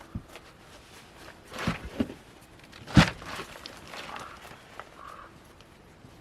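A few scattered knocks and scrapes, handling sounds, the loudest a sharp knock about three seconds in.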